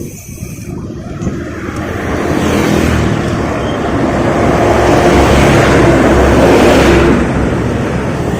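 A motor vehicle passing close by: its engine and road noise build over a few seconds, are loudest about five to seven seconds in, then fade.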